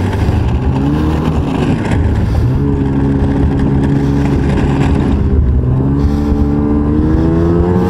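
Ski-Doo snowmobile engine running under way. Its pitch rises with the throttle about a second in, holds steady, then dips and climbs again near the end.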